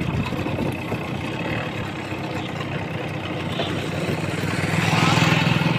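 A motor vehicle's engine running steadily, getting louder near the end.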